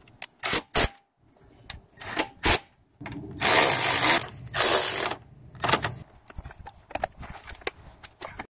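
Cordless impact driver running bolts in on the radiator support: several short trigger bursts, then two longer, loud bursts of hammering about three and a half and four and a half seconds in. Lighter clicks and rattles of parts being handled follow.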